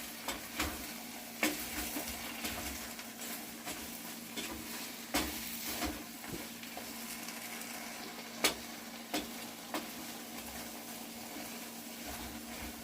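Okra frying in oil in a pan with a steady sizzle, and a utensil scraping and knocking against the pan as it is stirred, with several sharp knocks spread through.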